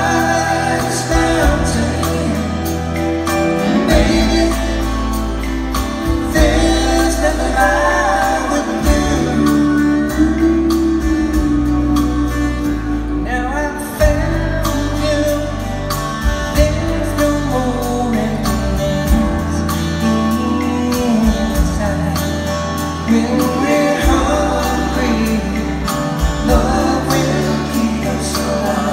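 Live band performance of a soft-rock ballad: acoustic guitars, electric bass and drums, with a gliding lead melody over them.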